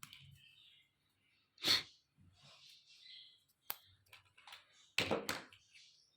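Small plastic toy kitchen pieces being handled and unpacked: scattered light clicks, taps and rustling, loudest about a second and a half in and twice in quick succession around five seconds in.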